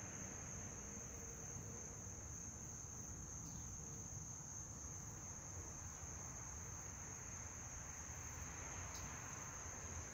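Quiet outdoor ambience: a steady high-pitched insect trill, unbroken throughout, over a faint low rumble.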